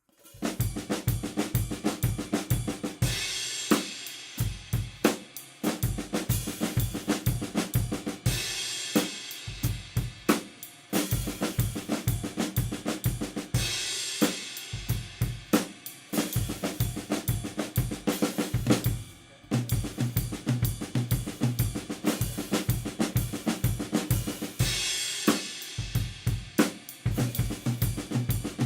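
Drum kit playing the Swiss Army Triplet flam rudiment: fast runs of flammed triplet strokes swept around the drums, landing on the ride cymbal together with the bass drum. A cymbal wash swells every few seconds.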